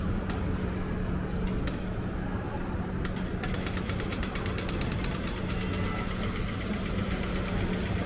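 Pedestrian crossing audio-tactile signal: slow single ticks about a second apart, then about three seconds in it switches to a rapid, even ticking, the walk signal. A steady low hum of idling traffic runs underneath.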